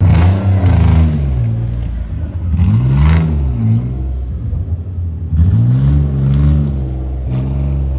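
Larger-engined off-road car's engine revving hard in repeated surges, its pitch climbing and dropping several times as it is pushed under load.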